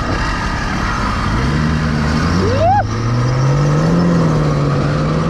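80cc two-stroke motorized-bicycle engine running under way, its pitch rising over a couple of seconds as it speeds up and then holding steady, over a rushing wind noise. A short rising squeal cuts in about two and a half seconds in.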